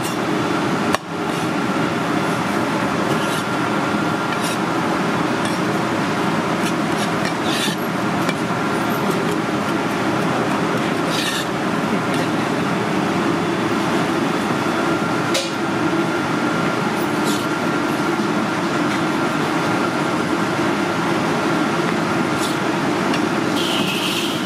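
Steady, loud rushing background noise with a faint steady whine, and a few soft knocks of a cleaver slicing cooked conch meat on a bamboo cutting board.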